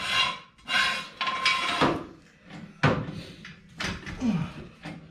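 Metal tools clanking and scraping: several rough scrapes with a ringing note in the first two seconds, then a few sharp knocks.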